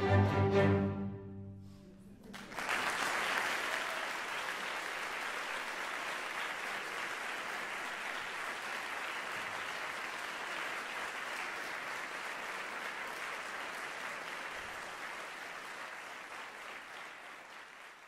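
A string orchestra's final chord rings and dies away over the first two seconds, then the audience breaks into steady applause that fades out near the end.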